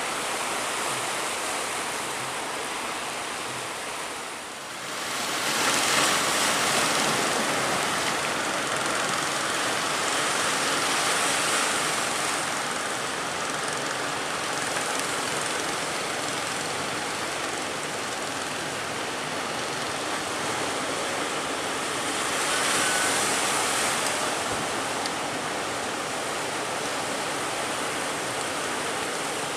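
Big ocean waves breaking in heavy surf, a steady rushing of water that swells louder about six seconds in and again around twenty-three seconds in.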